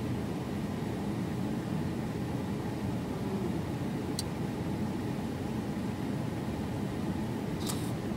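Steady low rumble of a vehicle's idling engine heard inside the van's cabin, with two brief light clicks, one about four seconds in and one near the end.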